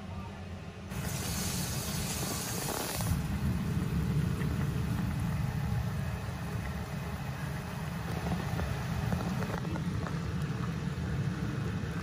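Pot boiling on a gas stove, a steady low rumble. About a second in, a hiss comes in for about two seconds.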